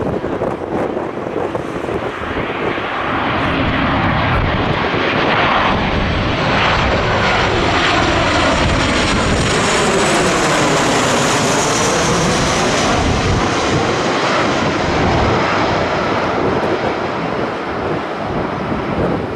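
Qantas Boeing 737-800 with CFM56 jet engines on landing approach, gear down, flying low overhead: the engine noise builds, peaks with a sweeping whoosh as it passes directly over about halfway through, then fades as it moves away.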